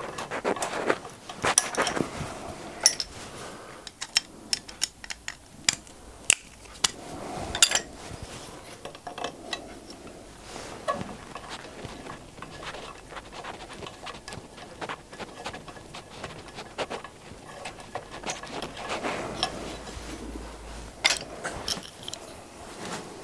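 Irregular small metallic clicks and clinks from a hand-turned thread-insert tool being screwed through a stainless steel thread insert in a cast iron casting. The clicks come thickly for the first several seconds, then grow sparse, with a short flurry near the end.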